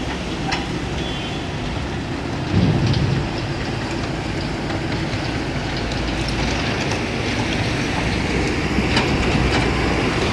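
Kobelco 220 excavator's diesel engine and hydraulics working, the engine rising under load about two and a half seconds in, over a steady rush of river water.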